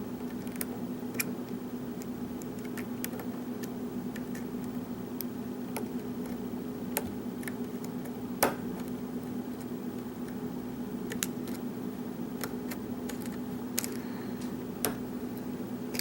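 Hook pick working the pins of a pin-tumbler lock under tension: scattered light clicks and ticks, with one louder click about eight and a half seconds in, over a steady low hum.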